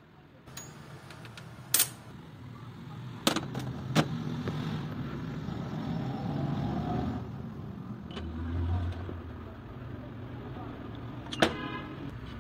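A few sharp metal clinks as steel motorcycle crankshaft halves are handled and set down on a steel workbench, spread out over a steady low background rumble.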